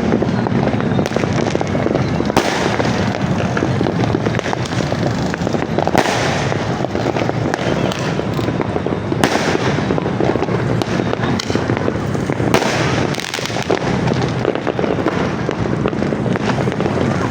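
Fireworks going off in a dense, continuous crackle of pops and bursts, with several louder bangs standing out about every three seconds.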